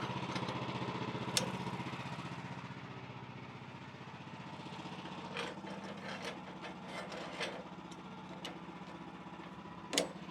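Small gas engine of a portable band sawmill idling steadily, with several sharp metal clanks as the log dogs are set against the log; the loudest clank comes near the end.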